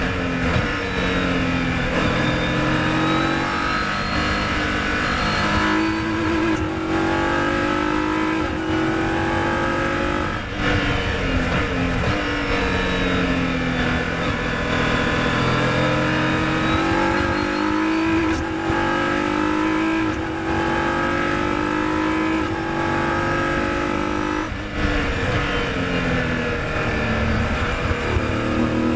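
Onboard engine sound of a Formula 3000 single-seater racing car driven hard on track. The engine pitch climbs again and again, with brief sudden breaks between the climbs and some falling stretches as the car slows for corners.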